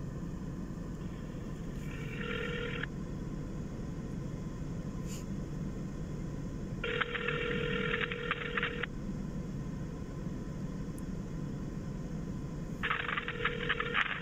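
Outgoing phone call ringing unanswered: the ringback tone through the phone's speaker, three bursts about two seconds long, roughly six seconds apart, over a low steady hum in the car cabin.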